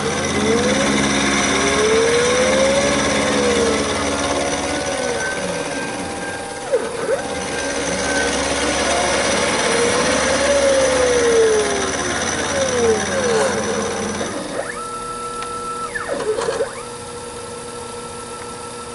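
Taig CNC micro mill cutting gray cast iron with a 3/16-inch carbide end mill: the spindle and cut run steadily under whining tones that glide up and down as the machine moves along the radius. About three-quarters of the way through it turns quieter, leaving a steady whine.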